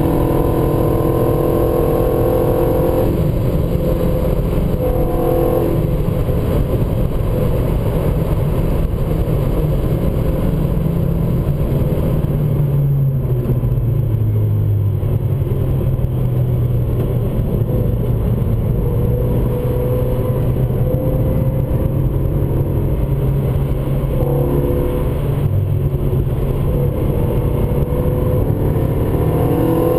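Renault Mégane RS's turbocharged four-cylinder engine under load at track speed, heard from inside the cabin over steady tyre and wind noise. The revs climb at the start, the pitch changes abruptly about three seconds in, it holds a steady low drone through the middle, and climbs again near the end.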